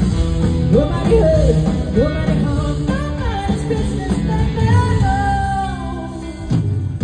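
Live band music with guitar, and a woman's lead vocal coming in just under a second in, heard from the audience in a large venue.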